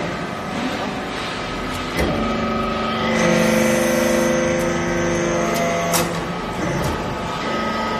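Hydraulic briquetting press working a pressing stroke: a steady pump whine, a knock about two seconds in, then a louder hum with several tones from about three to five and a half seconds as the ram comes down and compacts the loose material in the mould. A sharp clack comes near six seconds.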